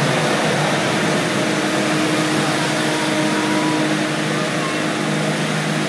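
Automatic car wash machinery running with a steady loud roar and a low motor hum, heard from inside the car.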